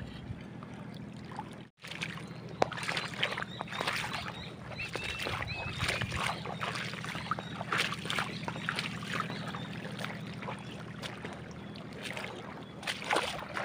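Steady low drone of a boat engine running throughout, with crackling, squelching footsteps on wet mud over it. The sound cuts out for an instant about two seconds in.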